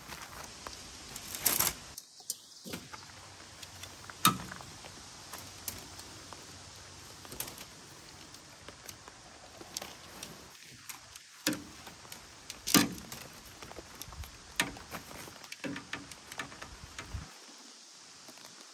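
Handling of jointed tent poles and tent fabric: scattered metallic clinks, clicks and knocks as pole sections are pulled out and knock together, with rustling of the fabric between them.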